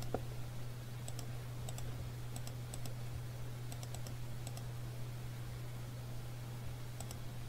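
Faint, scattered clicks of a computer mouse, a few at a time, over a steady low hum.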